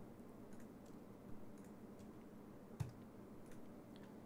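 A few sparse clicks from a computer mouse and keyboard over quiet room tone, the loudest about three seconds in.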